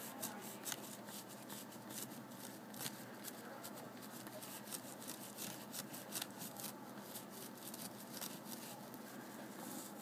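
Microfiber cloth buffing a brass belt buckle under firm pressure: faint, quick scratchy rubbing strokes, several a second, as the polish cream is buffed off to a shine.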